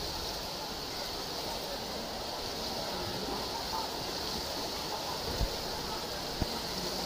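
Several swimmers swimming butterfly in a pool, their splashing a steady rushing water noise, with two dull thumps in the last two seconds.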